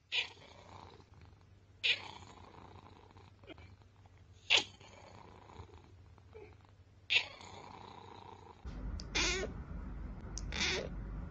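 A cat making short, sharp calls every two to three seconds. Near the end a low, steady purr starts, with two longer, drawn-out meows over it.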